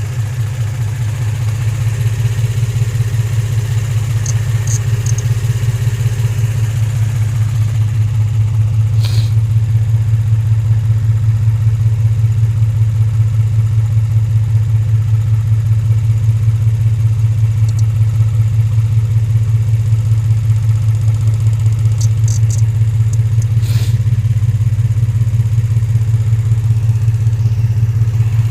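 A 2003 Infiniti G35's 3.5-litre V6 idling with an even, steady pulse; the car is being diagnosed for a misfire and lack of power. A couple of light clicks sound about a third of the way in and again near the end.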